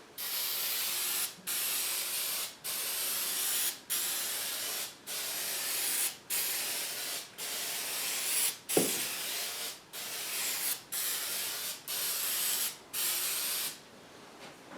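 Aerosol spray can spraying finish in about a dozen short hissing passes, each roughly a second long with brief breaks, stopping near the end: the second coat of finish going onto a wooden box. A short falling squeak sounds about nine seconds in.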